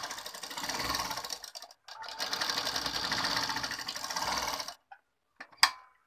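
Domestic sewing machine running in two stitching runs through cotton fabric, with a short pause after about a second and a half. It stops shortly before the end, followed by one sharp click.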